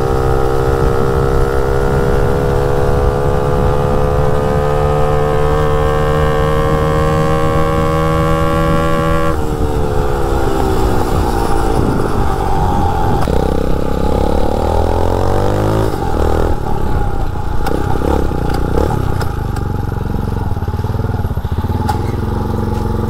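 Mini bike's 250cc dirt bike engine running hard at high revs on a top-speed run, its pitch climbing slowly. About nine seconds in the revs drop suddenly and fall away. They rise again briefly, then the engine runs on at lower, less steady revs.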